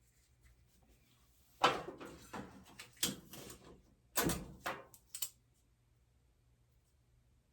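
A handful of short knocks and scrapes as parts of a dryer's control console are handled and fitted, the first the loudest.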